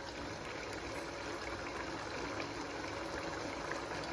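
Thick chicken gravy bubbling steadily as it simmers, with a wooden spatula stirring through it, while the gravy is cooked down to thicken.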